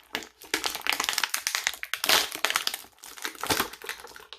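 Plastic action-figure packaging crinkling and crackling as it is handled, in dense runs of clicks and rustles, loudest about two seconds in.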